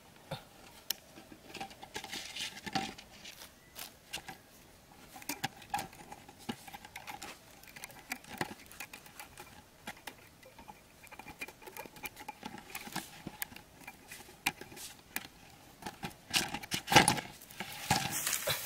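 Irregular small clicks, taps and crinkles of a 1.5-litre plastic soda bottle and thin bamboo sticks being handled and fitted together by hand, with a louder clatter near the end.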